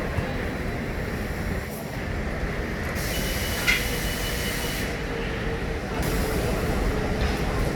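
Steady low rumble of passing vehicle traffic with a faint steady hum. A brief high squeal about three and a half seconds in.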